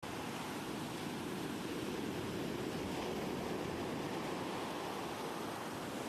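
Steady rushing noise, an even ambient wash that cuts in abruptly out of silence and holds level.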